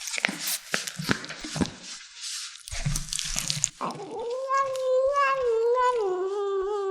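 Kittens crunching and chewing on chicken, then a kitten gives one long, wavering meow about four seconds in that lasts to the end.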